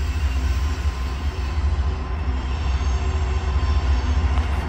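Diesel freight locomotive approaching along the track, its engine a steady, deep rumble.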